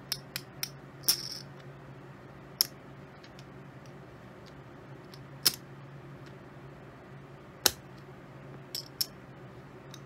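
Poker chips clicking against each other as they are picked up and stacked by hand: scattered single clicks, several in quick succession about a second in, then a few spread out, with a pair near the end. A steady low hum runs underneath.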